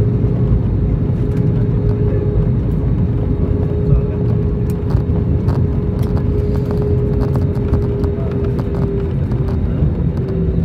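Jet airliner cabin noise while the plane rolls on the ground: a steady low engine rumble with a held hum that dips slightly in pitch near the end.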